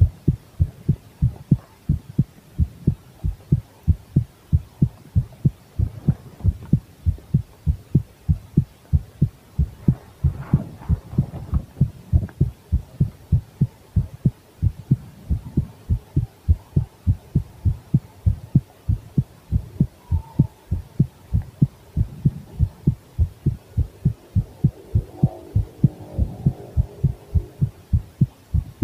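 A woman's heartbeat heard close at the chest: a steady, even run of low thuds that goes on without a break.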